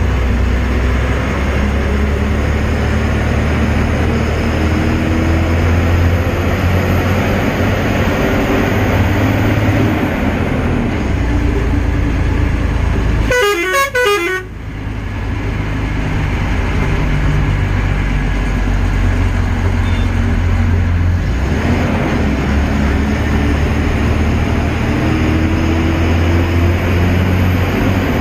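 A vehicle driving on a mountain road: steady engine and road rumble, with a short horn sound about halfway through.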